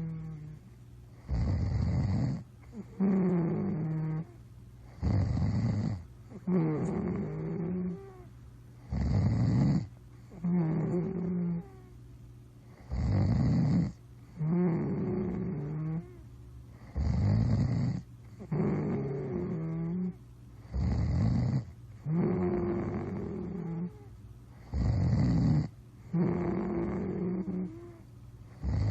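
Snoring in a steady rhythm, about one breath every four seconds. Each breath is a short, rough snore followed by a longer, wavering hum.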